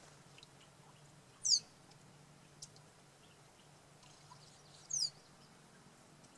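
Calliope hummingbird giving two short, high-pitched twittering calls, each a quick run of descending notes, one about a second and a half in and another about five seconds in. Beneath them are faint ticks from the bubbling fountain and a low steady hum.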